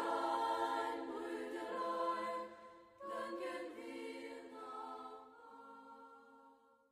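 Group of voices singing together in long held notes: one phrase, a short break, then a second phrase that fades away near the end.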